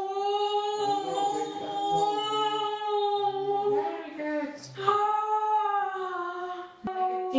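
A woman in unmedicated labor moaning through a contraction: two long, high, drawn-out moans, the first held about four seconds, the second starting after a brief breath near the middle and sinking slightly in pitch toward the end.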